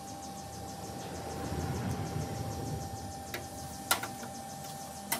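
Steel bolt and nuts being handled and set upright on a steel plate, with three short sharp metal clicks in the second half, the last the loudest.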